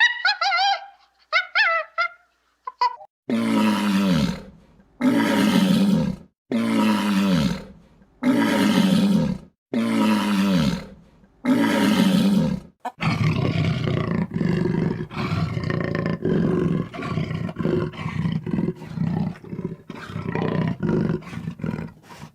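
A few short, high calls, then six loud, long animal roars evenly spaced about a second and a half apart, followed by a continuous rough growling roar.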